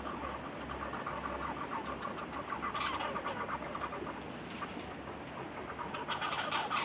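Red squirrels scrabbling and handling peanuts on a wooden picnic table: a run of fine, rapid clicks and rustles, with a brief louder rustle about three seconds in and louder scuffling near the end.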